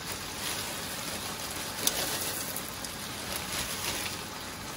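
Cut vegetables (cauliflower, carrot and onion) sizzling steadily as they fry in a pan, with one short sharp click about two seconds in.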